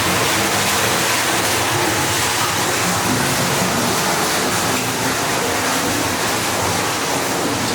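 Steady rushing hiss of water, with no clear rhythm or pitch.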